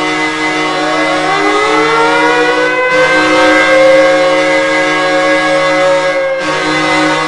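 Boston's hockey goal horn blaring a steady chord. An air-raid siren joins about half a second in, winds up in pitch, holds, and cuts off about six seconds in while the horn carries on.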